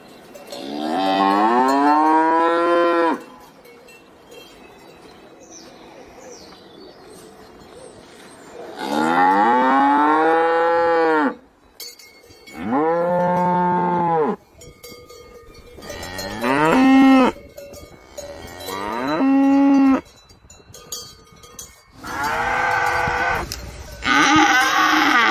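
Cattle mooing: about seven long calls, each rising and then falling in pitch, with a long pause after the first and shorter pauses between the rest.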